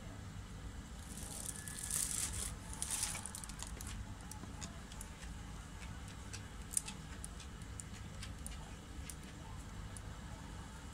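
Scattered light clicks of a dog's claws ticking on a vinyl floor, over a steady low hum. A brief rustle comes about one to three seconds in.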